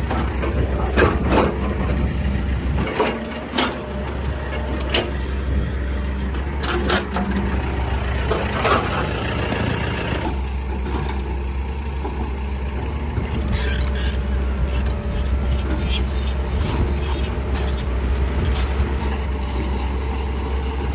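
Heavy diesel engine running steadily, with repeated knocks and clatter over it.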